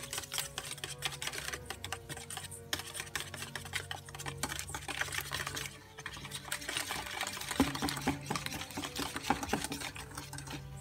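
Wire whisk beating eggs and sugar in a stainless steel bowl: rapid clicking of the wires against the metal.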